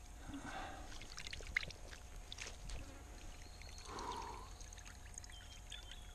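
Faint water splashing and trickling, with scattered light clicks and rustles as a lure's hooks are worked free of a landing net's mesh. A short, slightly louder splash comes about four seconds in.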